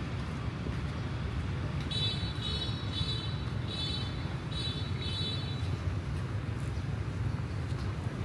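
Steady city street traffic rumble. A run of about six short, high-pitched chirps comes between about two and five seconds in.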